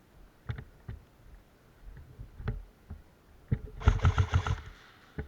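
Airsoft gun firing a short rapid burst of about six shots, with its motor whining under them, about four seconds in. It follows a few scattered single knocks.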